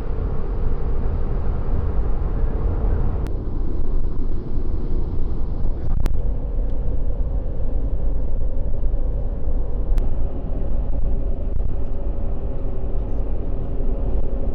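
A car driving, with a steady deep engine and road rumble and a low hum. Three brief clicks break in, at about 3, 6 and 10 seconds in.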